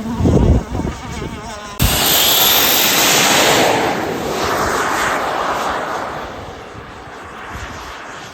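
Model jet turbine of an RC powerboat running with a loud rushing roar and a thin, high whine that rises in pitch. It cuts in suddenly about two seconds in and then slowly fades away. Low thumps come before it.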